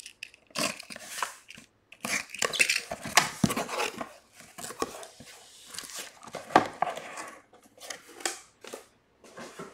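A cardboard shipping case being handled and opened by hand: cardboard scraping and rustling with many sharp knocks, as the boxes inside are taken out and stacked.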